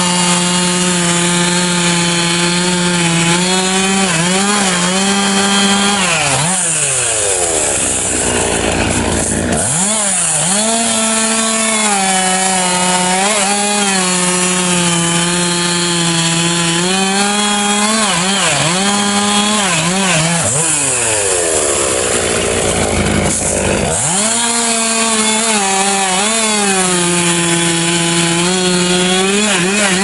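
Two-stroke gas chainsaw running at high revs while cutting through a pine log, its pitch sagging each time the chain bites into the wood and rising again as it frees up. Twice, for a few seconds each, the steady engine note breaks up into a rough rasp.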